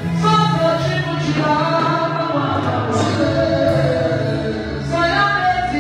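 A woman singing a gospel worship song into a microphone, holding long notes.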